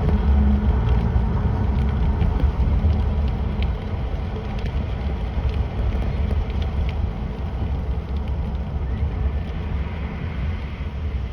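Car driving in the rain: a steady low road rumble with scattered light ticks of raindrops.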